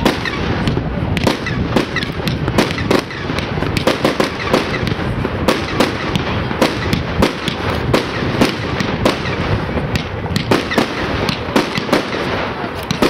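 Aerial fireworks bursting in a rapid, irregular series of sharp bangs over a continuous din.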